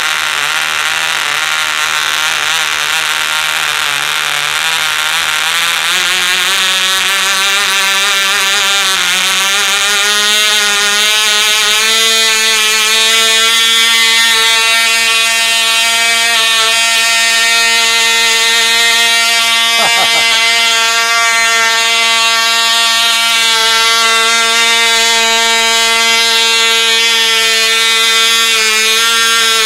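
Cox Baby Bee .049 two-stroke glow (nitro) model engine running at full speed, a loud, high-pitched steady whine. Its pitch climbs between about six and twelve seconds in, then holds steady until it stops abruptly at the very end.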